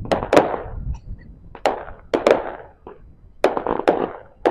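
An 80-shot RedApple Power Ups firework cake firing its finale: sharp shot reports in uneven clusters, with three in quick succession near the end, each trailed by a short rush of crackle.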